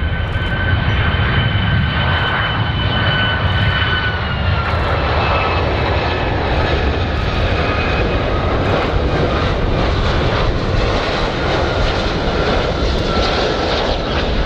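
Boeing 757 jet airliner on final approach with its gear down: a steady jet engine whine over a low rumble and hiss, the whine dropping a little in pitch about four seconds in.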